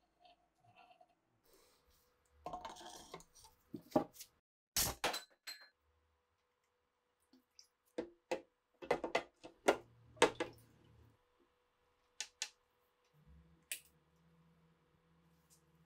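Metal parts of an SA-26 receiver clinking and knocking against a glass tank of water in a string of separate sharp clicks. Near the end a switch clicks and a low steady hum starts as the electrolysis power supply comes on.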